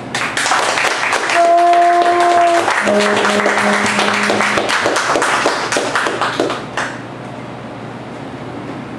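Audience applauding, with a saxophone playing a few long held notes over the clapping. The applause dies away about seven seconds in, leaving a low steady room hum.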